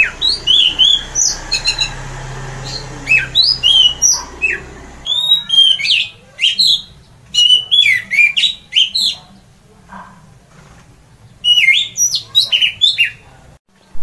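Orange-headed thrush singing loudly in quick runs of short whistled notes. It breaks off for about two seconds about ten seconds in, then starts again.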